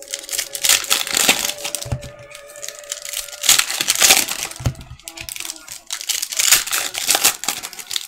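Foil trading-card pack wrappers crinkling and tearing as hands pull them open and handle the cards, with a couple of dull knocks on the table about two and five seconds in. A faint steady tone runs underneath for the first three and a half seconds.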